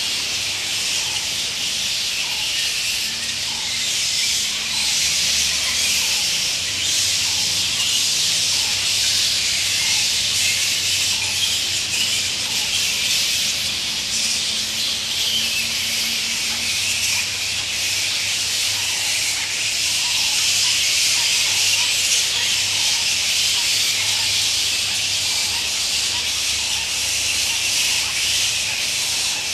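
A large roosting colony of flying foxes (fruit bats) in a tree, many bats screeching and chattering at once in a continuous shrill, hissing din.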